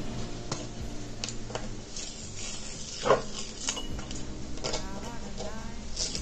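Patterned paper masking tape being peeled off the edges of watercolour paper: a soft, uneven tearing with scattered small crackles, and one louder crackle about three seconds in.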